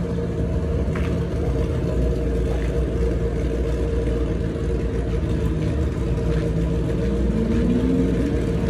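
Motorcycle engines idling at a drag strip start line, a steady rumble with a slight rise in engine pitch near the end.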